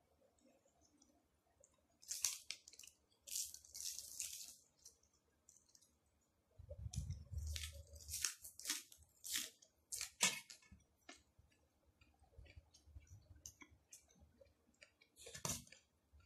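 Close-miked chewing of a mouthful of food, with wet, squishy mouth sounds and irregular bursts of crisp crunching, the crispest around the middle as fresh herbs are bitten and chewed.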